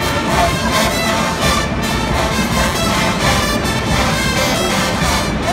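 Large marching band playing a loud brass passage, trumpets, trombones and sousaphones together.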